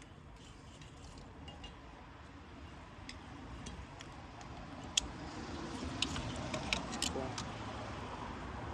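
Scattered light clicks and clinks, sharpest about five seconds in and bunched around six to seven seconds, from hands and a screwdriver working plastic wiring-harness connectors and clips loose on an engine.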